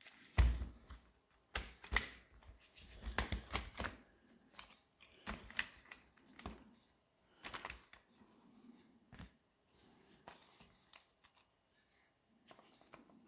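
A Hilti SID 4-A22 cordless impact driver being taken apart by hand: its plastic casing halves and internal parts click, knock and rattle irregularly, with the heaviest knock about half a second in.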